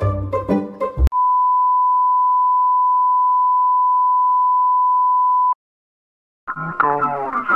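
A 1 kHz test tone over colour bars: one steady beep held for about four and a half seconds, cutting off suddenly. Plucked-string music runs into it at the start, and guitar music begins after a second of silence near the end.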